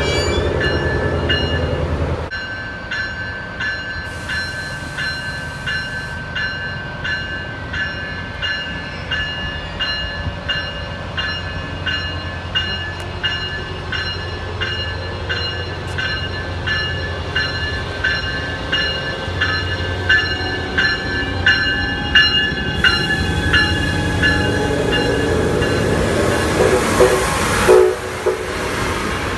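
A diesel locomotive's low rumble close by cuts off about two seconds in. Then a train bell rings steadily, about two strikes a second, as an Amtrak Siemens SC-44 Charger locomotive approaches. The locomotive's rumble swells near the end as it passes close.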